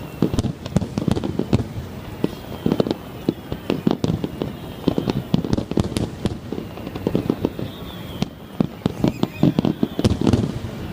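Aerial fireworks bursting in a rapid, unbroken barrage of booms and crackles, several shells a second with no pause.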